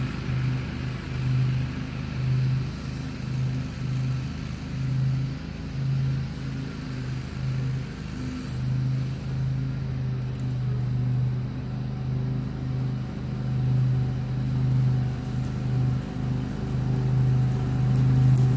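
Grasshopper Model 612 riding mower's engine running under load while mowing, a steady low drone that swells and fades as the mower moves across the lawn.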